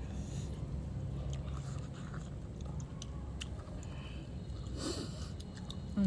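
A person chewing food, with scattered small clicks over a steady low rumble, and a short breathy noise about five seconds in.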